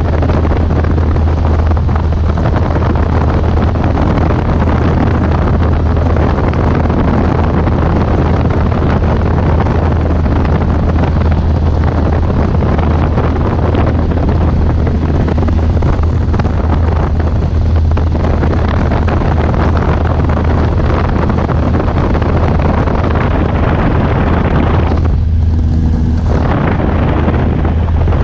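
Light aircraft's engine and propeller running steadily in the cabin during the climb, a loud drone with wind rushing past. Near the end the sound is briefly muffled.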